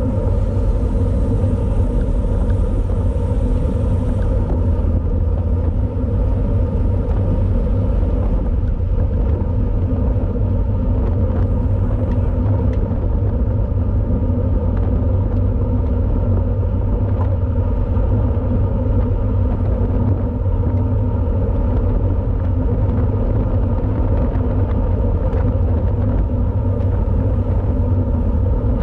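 Steady, loud wind rumble on the microphone of a camera riding on a road racing bike, deep and unbroken, with faint road and drivetrain hum beneath it.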